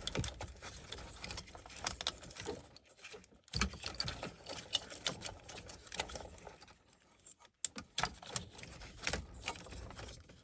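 Irregular plastic clicks, rattles and rustles of wiring harness connectors being unplugged from the back of a car stereo head unit.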